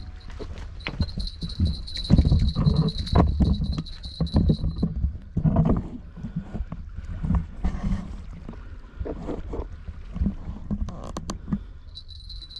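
Footsteps and scuffs of someone clambering over rock armour, with wind rumbling on the microphone. A thin steady high whine sounds for the first few seconds and returns near the end.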